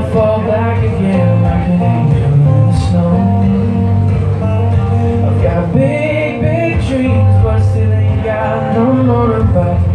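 Live song: a man singing over a strummed acoustic guitar.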